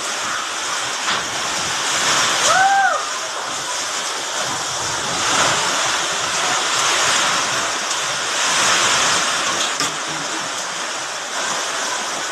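Steady loud rush of a heavy rainstorm with strong wind, swelling and easing a little. A short tone that rises and falls in pitch sounds about two and a half seconds in.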